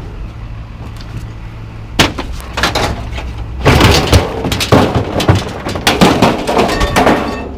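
Scrap metal being unloaded and dropped: a lone clank about two seconds in, then a rapid run of clanks and crashes that stops shortly before the end, over a steady low hum.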